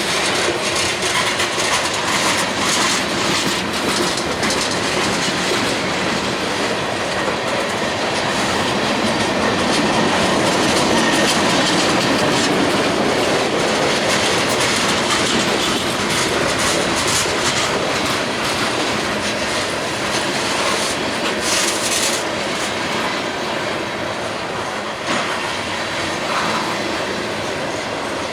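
CSX freight train cars rolling slowly past, with steady wheel-and-rail noise and repeated clacks of the wheels over the rail joints.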